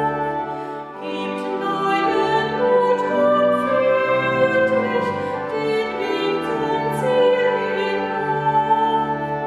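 A woman singing a German sacred song in a clear solo voice, holding long notes that waver slightly, with a short break between phrases about a second in.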